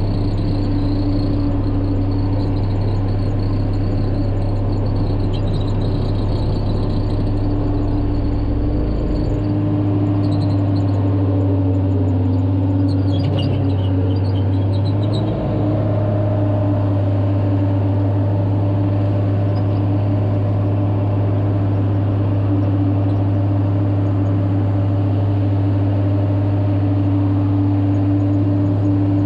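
Diesel engine of a single-drum road roller compactor running steadily as the roller drives over the dirt, a deep even hum with a fixed engine note above it. The lowest rumble drops away about nine seconds in.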